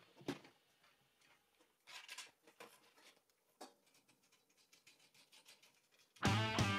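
Scattered faint clicks and light taps with quiet gaps between them. Guitar background music starts about six seconds in.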